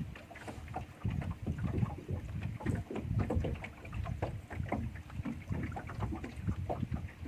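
Water lapping and sloshing against the hull of a small fishing boat, in uneven low knocks and splashes.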